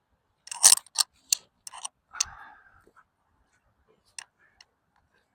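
Several short, sharp clicks and knocks at uneven intervals, with a brief rustle about two seconds in and one last click near the end.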